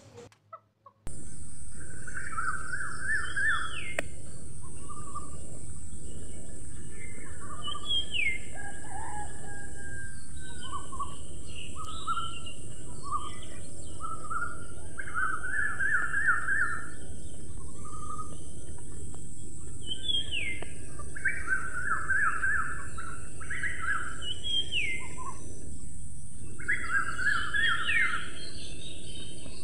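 Small birds chirping in short repeated phrases every few seconds, each a quick run of notes with a brief rising whistle above it. A steady high hiss runs underneath and starts abruptly about a second in.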